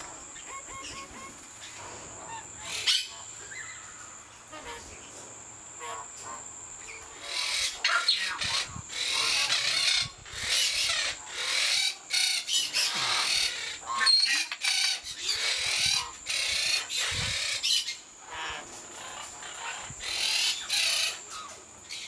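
Eclectus parrots calling while mating: a long run of loud, rapidly repeated squawks that starts about seven seconds in and eases off near the end, with softer chirps before it.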